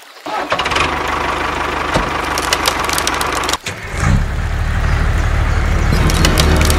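Engine running steadily with clicks and rattles over it. It cuts out briefly a little past halfway, then resumes slightly louder.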